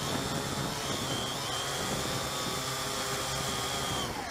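Syma X8C quadcopter's motors and propellers whining steadily, heard close up from the drone's own onboard camera. About four seconds in, the pitch falls and the sound dies away as the motors spin down.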